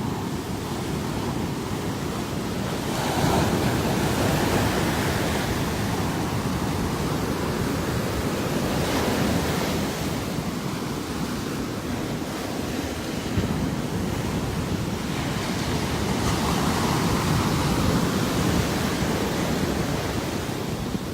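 Ocean surf washing onto a beach, with wind on the microphone. The wash swells louder twice, a few seconds in and again near the end.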